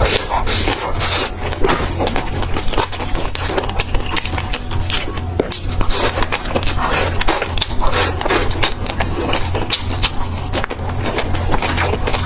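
Close-miked chewing and crunching of fried snack skewers: a dense, irregular run of crisp crackles and clicks over a low steady hum.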